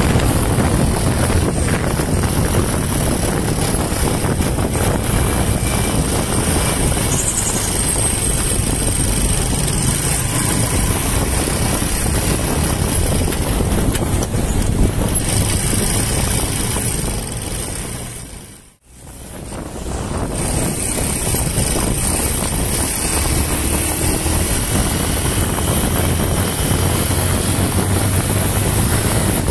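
Honda TMX 125's single-cylinder four-stroke engine running at road speed, mixed with steady wind rush on the microphone. About two-thirds of the way through, the sound fades almost to nothing for a moment, then comes back.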